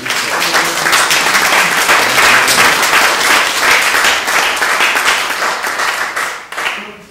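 Audience applauding, loud and steady, dying away near the end.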